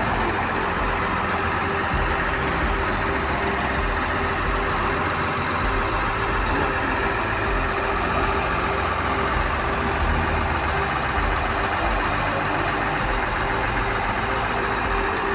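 Armoured police vehicle's engine idling steadily, a constant low drone with a steady hum.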